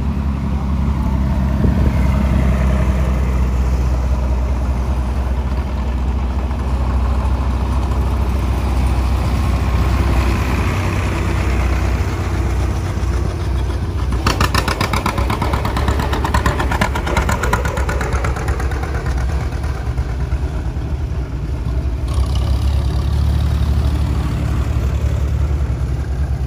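Several antique farm tractor engines running at low speed as they drive past in a line, a steady low drone. About halfway through, a green John Deere tractor passes close, and its exhaust gives a fast, even run of pops for a few seconds before fading.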